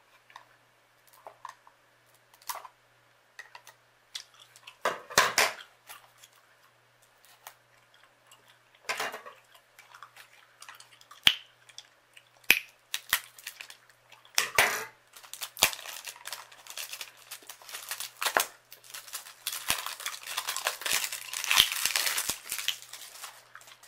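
Clear plastic wrap on a new eyeshadow palette being snipped with scissors and crinkled as it is peeled off: scattered sharp crackles and clicks, becoming dense, continuous crinkling over the last several seconds.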